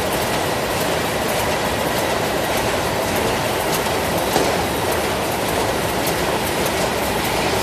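Long-conveyor automatic cartoning machine running: a steady mechanical clatter from the conveyor and its pushers, with faint irregular clicks.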